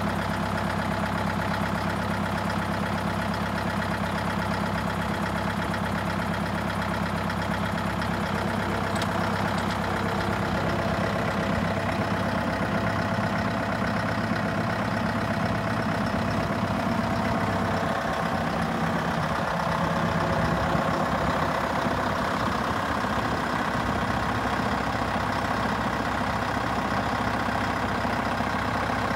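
Scania Super 50 truck's diesel engine running steadily, powering the aerial lift's hydraulics as the boom is raised; it picks up slightly about two-thirds of the way through.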